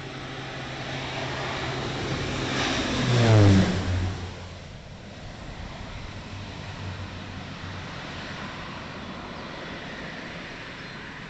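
Air Tractor AT-502 crop-dusting plane with a PT6A turboprop engine making a low pass. The propeller and turbine sound swells to its loudest about three seconds in, drops sharply in pitch as the plane goes by, then recedes to a fainter drone.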